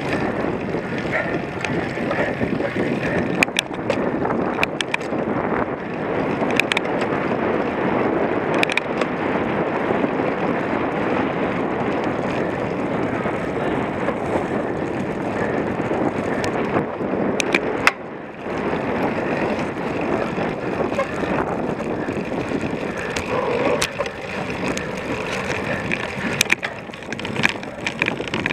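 Cyclocross bike ridden over rough ground: a steady rumble of tyres and rattling from the bike, broken by scattered sharp clicks and knocks.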